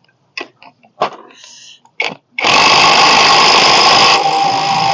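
Cordless impact wrench running for about three seconds, starting about two and a half seconds in, driving the 19 mm nut on the fan pulley tight; its tone changes partway through. Faint handling clicks and knocks come before it.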